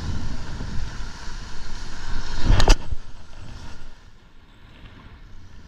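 Wind buffeting the microphone over surf washing against the jetty rocks, with one short, loud burst of noise about two and a half seconds in. The rumble drops away sharply about four seconds in.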